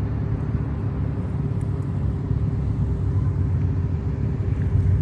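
Steady low rumble with a faint steady hum.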